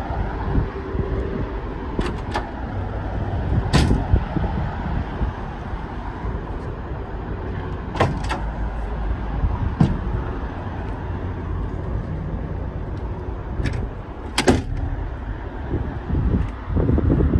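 Low steady rumble of a GMC Sierra Denali's 6.2-litre V8 running, broken by several sharp clicks and knocks scattered through it.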